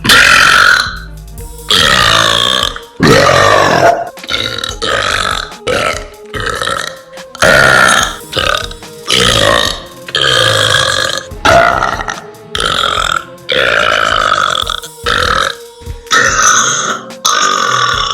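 A young woman burping over and over: a dozen or more long, pitched belches in quick succession, echoing in an empty, unfurnished room.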